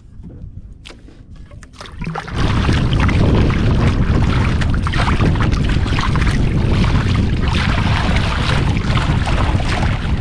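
Small fishing boat underway: a low rumble with a few clicks, then from about two seconds in a loud, steady motor-and-water sound as the boat gets going.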